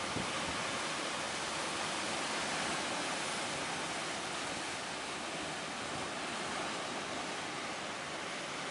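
Steady rushing noise of strong wind and breaking waves on a rough sea.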